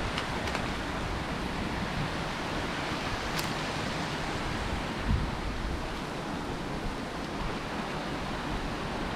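Steady rushing wind noise with no engine or voices, briefly buffeting the microphone about five seconds in.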